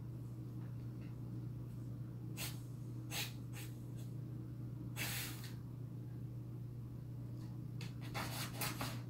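Springer spaniel sniffing hard in short bursts, nose to the base of a washing machine, on the scent of a small animal hiding there. There are a few separate sniffs, a longer one about halfway, and a quick run near the end, over a steady low hum.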